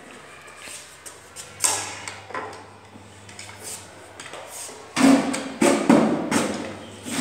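Scattered knocks and taps from a toddler handling an upturned wooden chair, quiet at first, with a louder run of knocks from about five seconds in.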